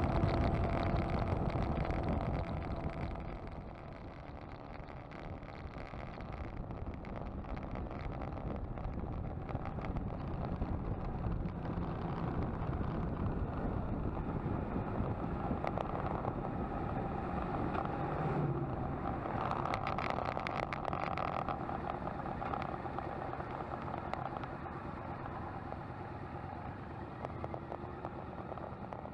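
Motorcycle engine running under way with wind and road noise; loudest at first, easing off about three seconds in, then steady.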